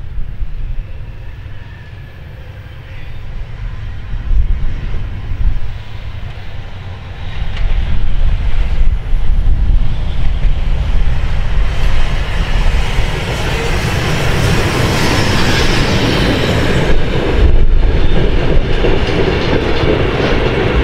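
DB class 64 steam tank locomotive 64 518 approaching with a train of old passenger coaches and running past. It grows louder over the first several seconds and stays loud as the locomotive and coaches go by over the rails.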